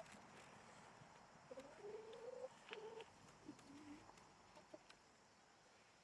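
Faint bird calls: a handful of short, wavering calls in quick succession over a steady low background hiss.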